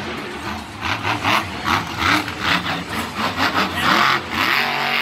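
Monster truck's supercharged V8 engine revved in quick, repeated throttle bursts, about two to three a second, as the truck drives across the dirt arena floor.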